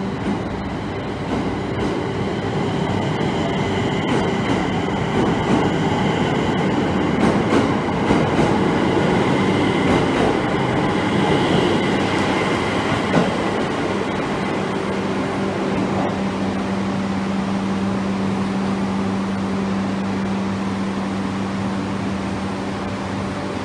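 Electric commuter train pulling out along the platform: its running and wheel noise builds, is loudest as the rear car passes about halfway through, then eases off. A steady low hum continues underneath.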